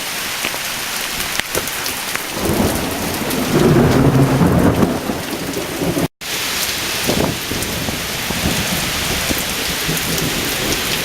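Heavy rain pouring steadily, with a rumble of thunder swelling up about two and a half seconds in and lasting some three seconds. The sound drops out for an instant near the middle, then the rain carries on.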